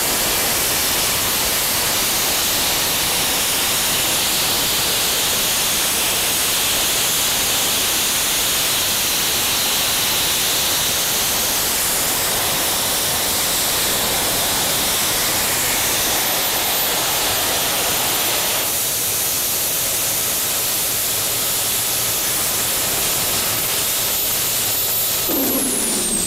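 Homemade air-breathing jet engine with a de Laval nozzle firing: a loud, steady rushing noise of its exhaust. Near the end a falling whistle sets in.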